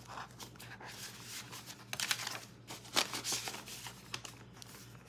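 Paper bills and a clear plastic zipper pouch rustling and crinkling as cash is slid into a binder envelope and handled, with a few light clicks and taps.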